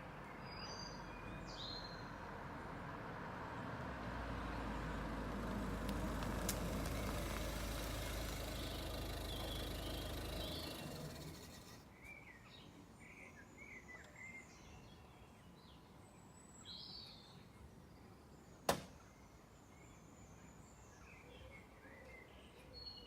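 Ford Focus 1.6 diesel rolling up and coming to a stop, its noise dying away about halfway through. Several seconds after the car has stopped there is a single sharp klunk, the strange noise this car makes after coming to a stop. Birds chirp in the background.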